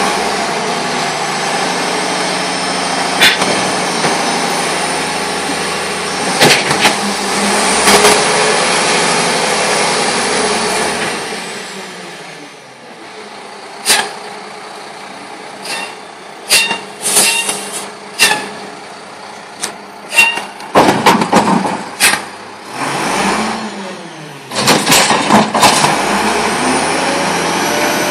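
Front-loader garbage truck working a steel dumpster: the engine revs up and down with a rising and falling whine for the first ten seconds or so, then metal clanks and bangs come at irregular intervals as the arms lift the bin, ending in a dense clatter as it tips its load into the hopper.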